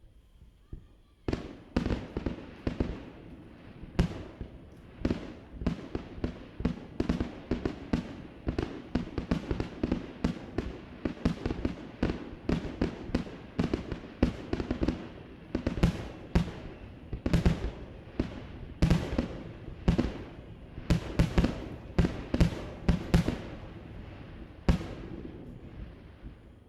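A fireworks display firing a rapid barrage of aerial shells: sharp booms come several a second with echoes trailing behind them. The barrage starts about a second in and dies away near the end.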